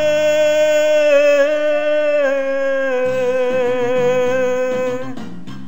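Song: a male voice holds one long note with slight vibrato for about five seconds over a backing band whose chords change partway through. The voice stops near the end and the band carries on alone.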